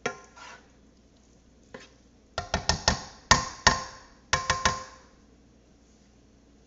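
A spoon clinking and knocking against a metal cooking pot: about ten sharp, ringing strikes in quick succession between roughly two and a half and five seconds in, with a couple of single clicks before.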